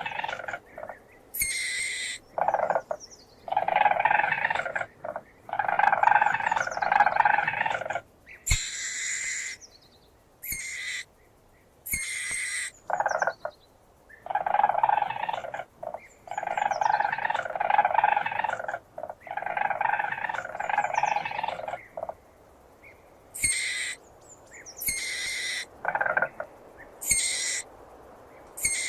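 Weasel calling: a run of trilling calls, each a second or two long, alternating with short, very high-pitched squeaks.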